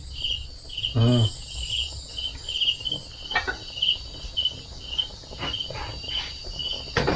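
Cricket chirping steadily, about two chirps a second, with a brief low sound about a second in.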